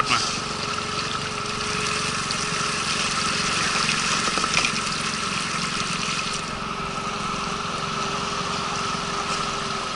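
Small outboard motor running steadily, pushing an inflatable boat along, with water rushing and splashing at the hull.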